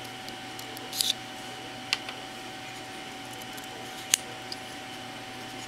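Small sharp clicks from the trigger of a working 1/3-scale miniature Glock 17 replica being pulled: three clicks at about one, two and four seconds in, the last the loudest, over a faint steady hum.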